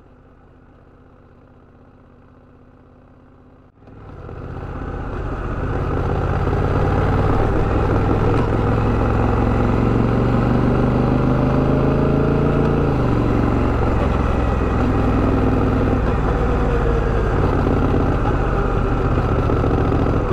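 Honda Rebel 1100's parallel-twin engine pulling away: after a few seconds of low, quiet hum it grows loud about four seconds in. Its pitch climbs, then drops sharply at an upshift about thirteen seconds in, and it runs on steadily under way.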